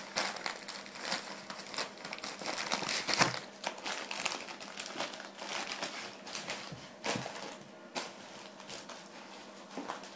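A dog worrying at a crinkly wrapped present, the wrapping crumpling and crackling in irregular bursts, loudest about three seconds in and again about seven seconds in.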